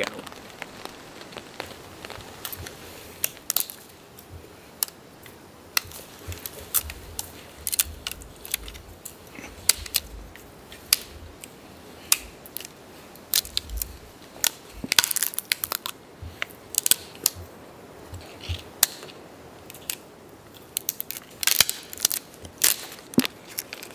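Dead wood cracking and snapping as branches are handled and broken, with twigs and forest litter crunching underfoot. The cracks are scattered, with denser bursts about 15 and 21 seconds in.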